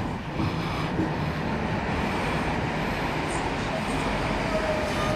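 Steady running noise of a Sydney Millennium (M-set) electric train at a station platform. A faint steady tone sounds briefly near the end.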